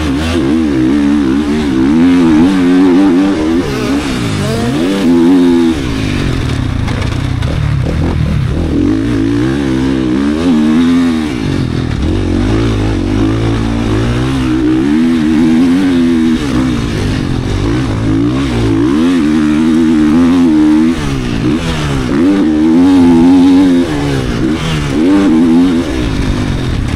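GasGas 450 motocross bike's four-stroke single-cylinder race engine being ridden hard, its pitch climbing and dropping again and again as the throttle is opened and shut.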